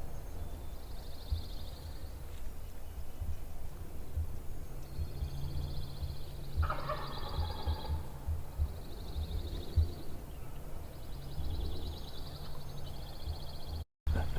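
A wild turkey gobbler gobbling repeatedly from his roost tree at dawn, in four rattling bouts, the longest in the middle. The hunters call him hot.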